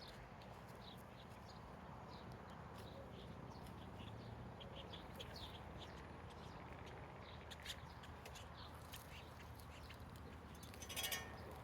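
Faint, scattered bird chirps, with one brief, louder rasping sound about eleven seconds in.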